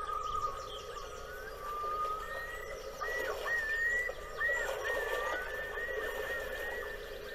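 Birds calling outdoors: several long whistled calls that glide and waver in pitch, over a busier background chatter of lower calls.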